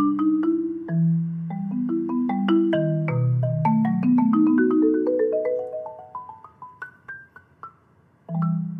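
Solo concert marimba played with four yarn mallets: a run of notes climbs upward and grows fainter, a brief pause follows, then a low chord sounds near the end.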